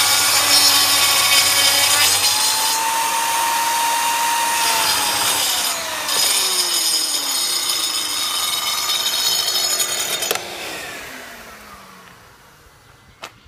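Mafell PSS 3100 SE panel saw's plunge circular saw running along its rail, cutting Cembrit Cembonit fibre-cement board with a loud, hissy, high whine. About ten seconds in it is switched off and the motor winds down, falling in pitch and fading, and a single click follows near the end.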